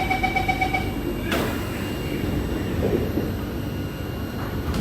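Door-closing warning beeps of a Kawasaki Nippon Sharyo C751B MRT train, a rapid series of even beeps that stops about a second in, followed by the doors shutting with a sharp thump. Then a steady rumble of the train and platform.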